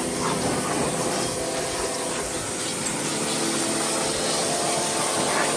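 Vacuum cleaner running steadily, a constant whooshing with a steady hum.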